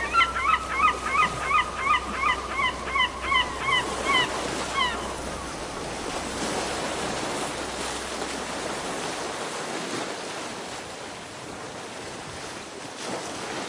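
Sea waves surging and breaking against rocky cliffs, a steady wash of surf. Over it a bird gives a rapid run of about fourteen honking calls, some three a second, which stop about five seconds in.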